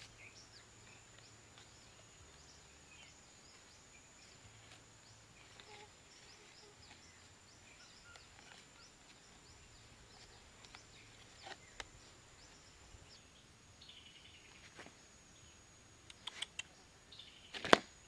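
Quiet outdoor background with faint scattered chirps and a thin steady high whine. Near the end come a few sharp clicks and knocks, the last one much the loudest, as the plastic basket is handled against the bamboo stakes of the trap frame.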